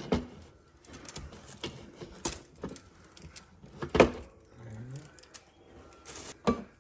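Parts and packaging of a new Breville espresso machine being handled: a series of plastic clicks and knocks, the loudest about four seconds in, with a short low hum-like sound near the end.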